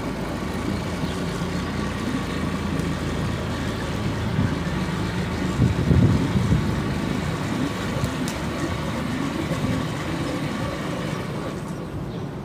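Steady engine hum, running evenly, with a brief louder low rumble about six seconds in.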